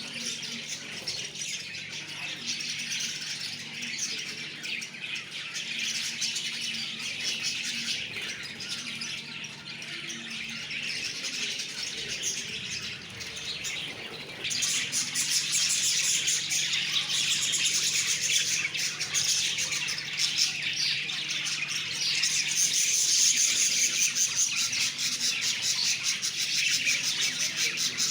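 Lovebirds chattering in a continuous stream of rapid high chirps, which get louder about halfway through. A faint steady low hum runs underneath.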